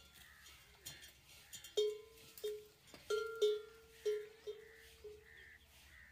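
Metal bell on a camel's neck clanking as the camel tugs at tree branches while browsing: a string of irregular strikes, each ringing briefly, most of them between about two and five seconds in.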